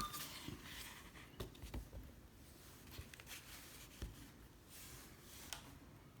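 Faint, scattered light clicks and rustles of a handheld radio scanner being handled and fitted into its protective case.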